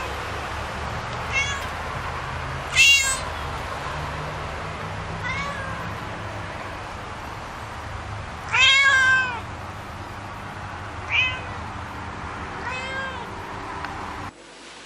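A cat meowing repeatedly: about six separate meows a second or more apart, the longest and loudest about two-thirds of the way through. A steady low hum runs underneath and cuts off just before the end.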